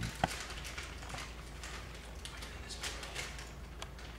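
Thin plastic bag crinkling and rustling in irregular little crackles as it is squeezed and shaken out over a bowl, with a low steady hum underneath.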